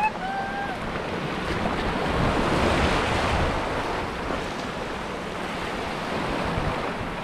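Small waves washing and breaking over shoreline rocks: a steady wash of surf that swells about two to three seconds in, with wind rumbling on the microphone.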